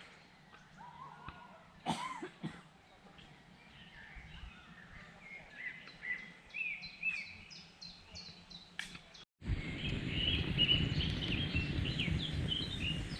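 Songbirds singing repeated short chirping phrases over a quiet forest background. About nine seconds in, a sudden cut brings in a louder, steady bed of noise full of small crackles and ticks, with the birds still singing.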